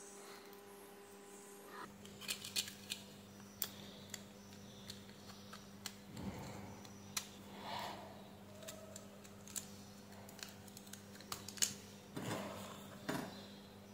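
Faint scattered clicks and light taps of a battery cell, its small circuit board and a plastic battery-pack shell being handled and fitted together by hand. A low steady hum comes in about two seconds in.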